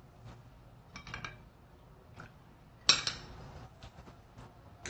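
Tableware clinking as utensils are handled against dishes: a few small taps about a second in and one sharper clink, the loudest sound, about three seconds in.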